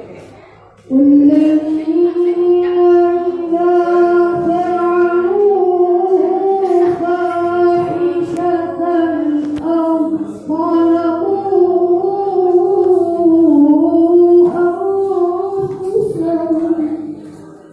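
A boy qari reciting the Quran in melodic tilawah style: long, held, ornamented lines with the pitch gliding and wavering, starting about a second in, with one short breath break and a fade near the end.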